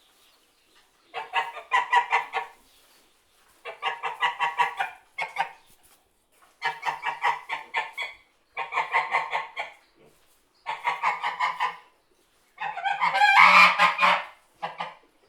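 A goose honking in six quick bouts of rapid, repeated calls. The last bout is louder and busier than the rest.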